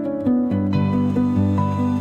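Background music: gentle new-age instrumental with plucked-string notes over sustained tones, its texture filling out under a second in.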